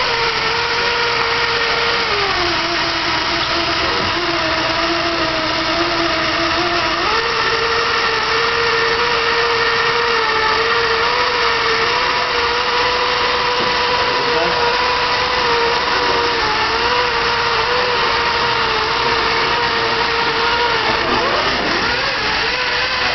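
A Lego robot's small electric drive motors whine steadily as it drives. The pitch drops for a few seconds about two seconds in, then rises back, and wavers again near the end.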